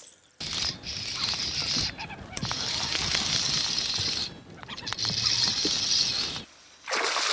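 Steady high-pitched insect buzzing, breaking off briefly three times.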